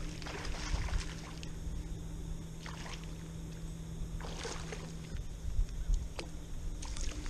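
Low rumble of wind and water around a kayak, with a faint steady hum that stops about five seconds in and a few short knocks, while a fish is played on rod and line.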